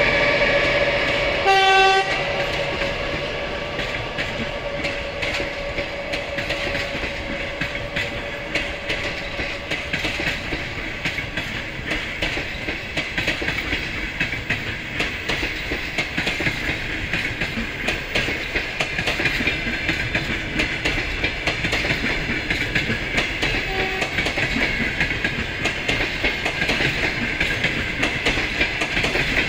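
Russian passenger coaches rolling past as the train pulls out and gathers speed, their wheels clicking over the rail joints. A short, loud train horn toot comes about two seconds in, and a faint brief one near the end.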